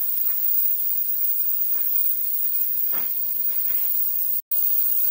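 Steady high-pitched background hiss, with a faint short knock about three seconds in and a brief drop to silence about four and a half seconds in.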